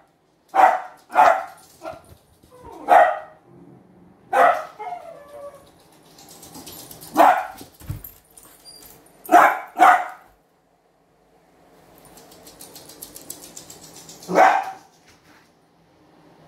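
Young dachshund barking in single sharp barks, about eight in all, with the gaps between them growing longer towards the end.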